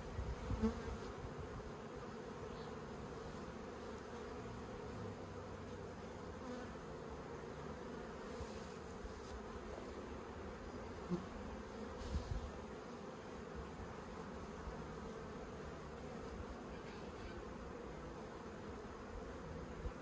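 Honey bees buzzing steadily around an open top bar hive, a faint low hum, with a few soft knocks as the wooden top bars are handled: one near the start and a couple about halfway through.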